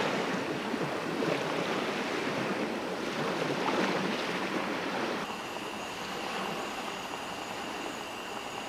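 Rushing outdoor noise of wind and waves at a lakeshore, rising and falling unevenly. About five seconds in it changes abruptly to a quieter, even hiss with a faint steady high whine.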